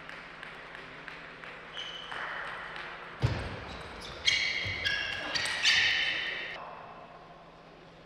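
Table tennis rally: the celluloid ball knocks off rackets and table, with sharp squeaks of players' shoes on the court floor in the middle of the rally, and it goes quieter near the end once the point is won.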